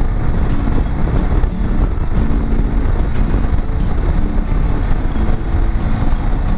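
BMW F750GS parallel-twin motorcycle riding at road speed, heard as a steady rush of wind noise over the engine, with faint background music underneath.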